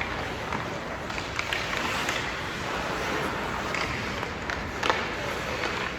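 Game-time ambience from a sports venue: a steady background din broken by scattered sharp knocks and clacks, with one louder knock near the end.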